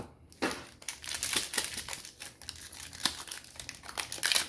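Foil wrapper of a Pokémon Sword and Shield booster pack crinkling and crackling as hands work at tearing it open, a busy run of sharp crackles that is loudest near the end.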